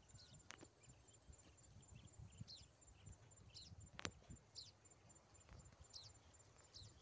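Near silence: faint rice-field ambience. A high, rapidly pulsing trill runs steadily, short high chirps come about once a second, and two faint clicks fall about half a second in and about four seconds in.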